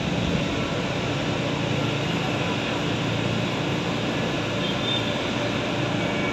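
Heavy excavator's diesel engine running steadily at a constant pitch and level.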